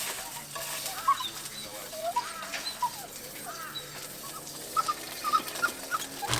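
Birds calling: a string of short arched, rising and falling notes, ending in a quick run of brief notes.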